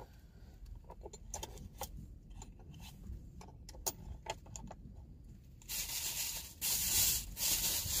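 Thin plastic bag handled and crinkled by hand, with scattered faint clicks at first; from about six seconds in the crinkling gets loud.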